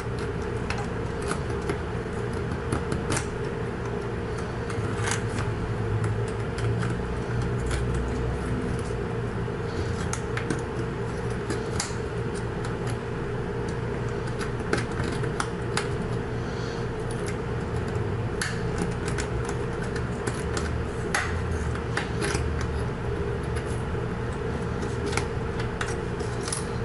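A razor blade scraping and picking hardened glue out of the plastic bracket of a truck instrument-cluster buzzer speaker, in irregular short scrapes and clicks. A steady hum runs underneath.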